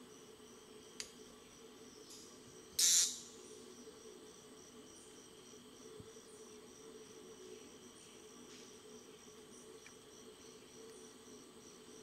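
Steady insect chorus with an evenly pulsing high trill. A single sharp snap comes about a second in, and a louder half-second hissing burst, the loudest sound here, comes about three seconds in.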